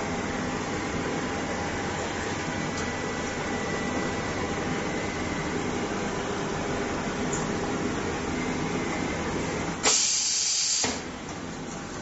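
Hot bar bonding machine running through a pressing cycle with a steady hum. About ten seconds in there is a loud burst of hissing air lasting about a second, and then the running noise drops quieter.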